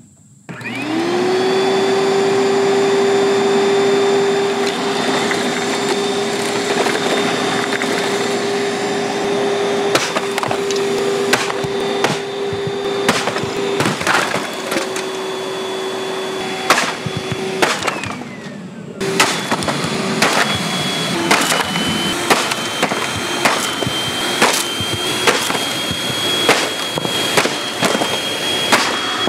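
Panasonic commercial upright vacuum cleaner switched on, its motor spinning up to a steady whine. From about a third of the way in, many sharp knocks and cracks sound over the running motor, which briefly goes muffled about two-thirds through.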